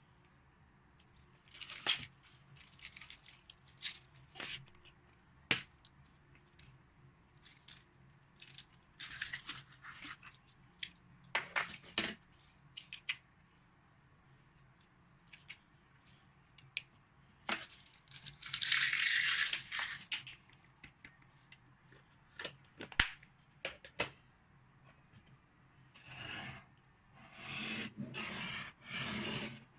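Hands working slime: scattered sharp crackles and pops as it is pressed and stretched, a longer crackling stretch just past halfway, and a run of rhythmic presses about one a second near the end.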